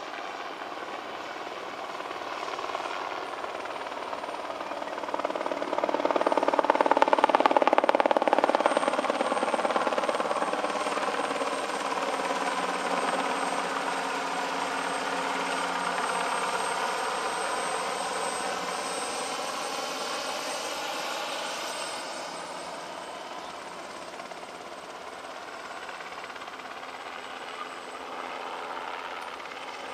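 Syton AH-130 light helicopter flying past, its rotor and engine making a steady beating drone. It grows loudest about seven seconds in as it passes closest, then fades slowly as it flies off, its pitch gently sliding.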